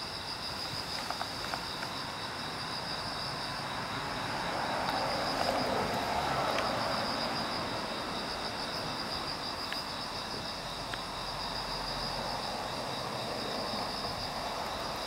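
Crickets singing: a steady, high, finely pulsing trill, with a soft hiss swelling for a few seconds in the middle.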